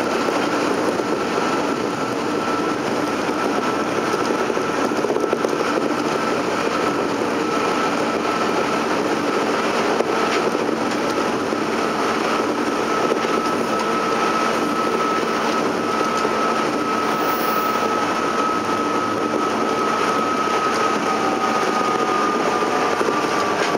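Interior running sound of a JR 203 series electric train at speed: a steady rumble of wheels and running gear, with a thin, steady high whine from its traction equipment that drops slightly in pitch near the end.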